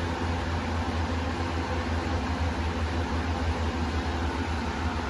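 Steady mechanical hum with an even hiss, like a fan or motor running.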